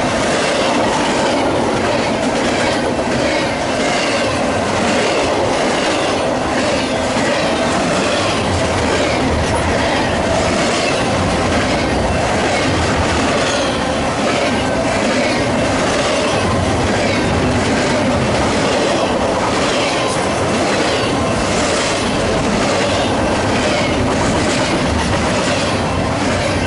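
Double-stack container well cars of an intermodal freight train rolling past close by. They make a steady loud rolling noise, with wheels clicking over the rail joints again and again.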